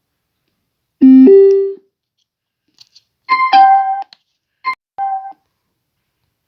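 Portable Bluetooth speaker playing its electronic prompt tones: a loud two-note rising chime about a second in, then short bursts of synthetic tones, with sharp button clicks between them.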